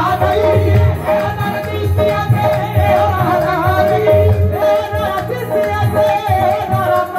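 Live qawwali music: a lead voice singing with harmonium accompaniment over a steady dholak drum beat.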